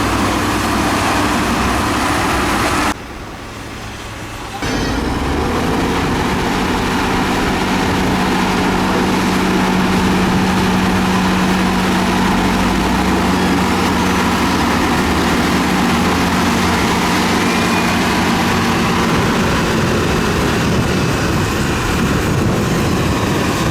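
Diesel engine of heavy road-building machinery running steadily with a constant low hum. It drops quieter for about a second and a half about three seconds in, then comes back at full level.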